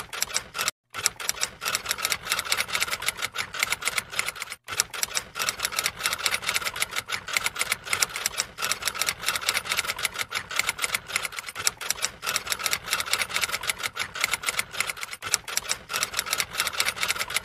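Typing sound effect: rapid, even key clicks, several a second, with short breaks just under a second in and about four and a half seconds in.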